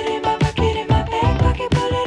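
Funk-style background music with a steady drum beat and bass, no vocals.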